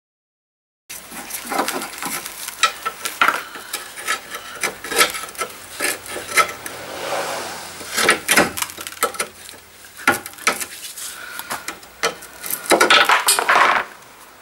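Ratchet spanner and socket running the nut off a car's anti-roll bar drop link stud: irregular metallic clicks, clinks and scrapes of steel tool on the nut. It starts after about a second of silence.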